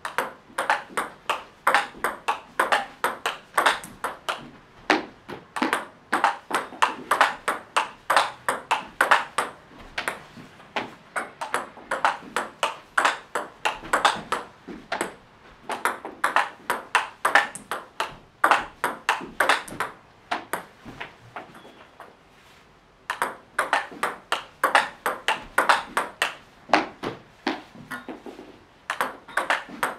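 Table tennis rally in a quick steady rhythm of about four clicks a second: the ball ticks off the paddles and bounces on the table as one player drives forehand topspin and the other blocks. Play stops for about two seconds about two-thirds of the way through, then the rally starts again.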